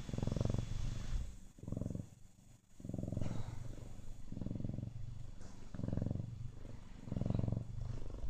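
Siamese cat purring close to the microphone, a low fluttering rumble that swells and fades about six times with its breathing.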